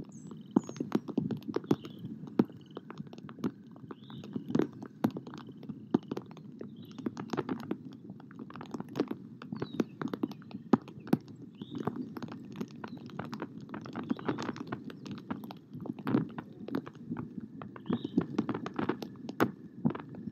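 Rain dripping onto the nest-cam microphone and the nest: irregular sharp taps and knocks, a few each second, over a low rumble.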